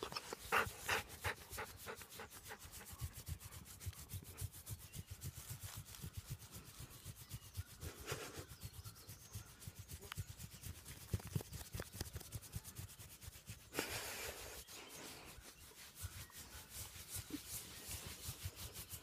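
A hand rubbing and scratching a wolf's thick fur close to the microphone: a long run of quick, short rustling strokes.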